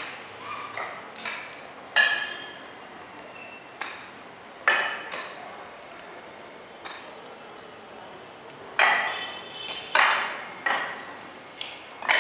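Spiked shoes clacking on a wet, freshly rolled floor coating: about a dozen irregular sharp clacks, each with a short ringing tail, loudest about two seconds in and bunched together near the end.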